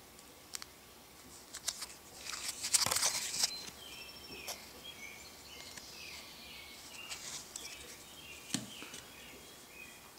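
Fingers handling a cardboard 2x2 coin holder: light clicks, then a crinkling rustle about two to three and a half seconds in as the holder is turned over. Faint high chirps continue through the rest.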